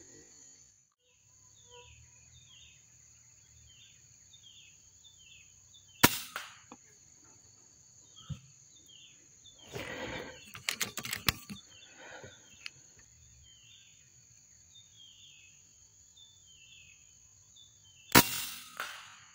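Two sharp air-rifle shots, about twelve seconds apart, the second as the scope settles on a monkey. A quick cluster of clicks and rustling comes about ten seconds in. Behind them run a steady high insect whine and a row of short falling chirps.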